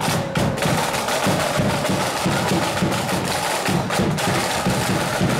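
Marching band's side drums and bass drum playing a steady march beat.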